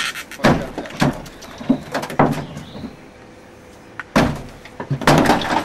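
Sharp metal knocks and clanks as a crashed car's crumpled bonnet and front bodywork are worked on by hand. A few single hits come about half a second apart, then after a quieter stretch a busier run of bangs near the end.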